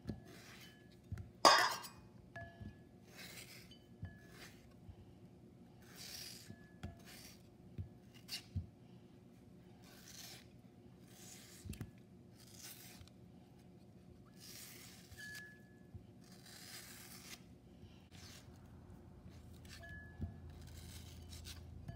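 Kitchen knife slicing through firm, half-ripe green mango, a run of short scraping cuts about one a second, with slices dropping into a ceramic bowl and one sharper click about one and a half seconds in.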